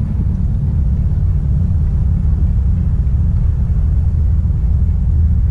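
Wind buffeting the camera microphone: a loud, steady low rumble that wavers without any pitch.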